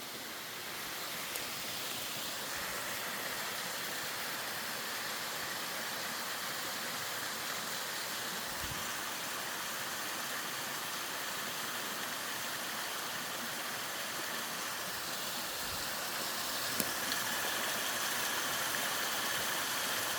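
Mountain stream water flowing: a steady rushing that grows a little louder toward the end.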